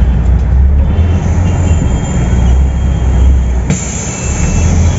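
Steady low rumble of a Volvo 8400 city bus's engine, heard from inside the bus, with a slight change in the sound near the end.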